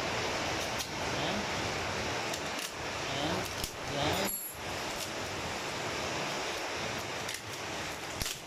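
Clear plastic wrapping crinkling, with small clicks and rattles, as a pair of stationary-bike pedals is handled and unwrapped, over a steady background hiss.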